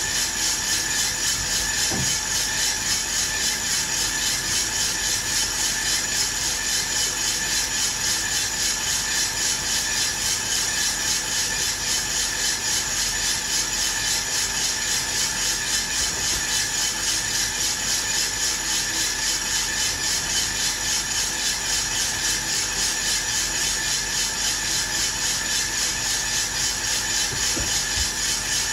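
Aillio Bullet R1 V2 drum coffee roaster running: coffee beans tumble in the rotating drum with a steady rasping rattle, over a constant whine from the roaster's fan and motor. The beans are around 130 °C, early in the roast and well before first crack.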